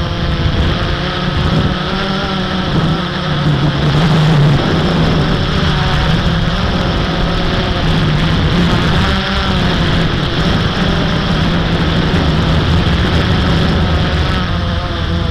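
Blade 350 QX quadcopter's brushless motors and propellers buzzing steadily, their pitch wavering up and down as the motor speeds change in flight.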